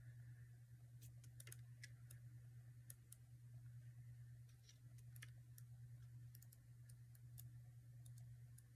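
Near silence: a steady low hum with faint, scattered clicks from paper sticker strips being handled and thumbed through.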